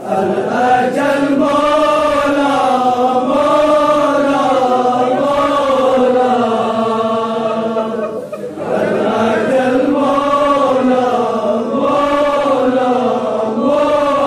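Voices chanting a devotional Urdu tarana together in a sustained, melodic line. One phrase ends about eight seconds in and the next begins after a short breath.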